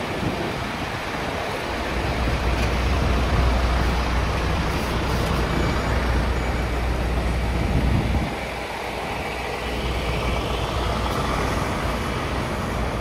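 Wind rushing over the microphone, with a steady low hum of a truck's diesel engine that drops away about eight seconds in.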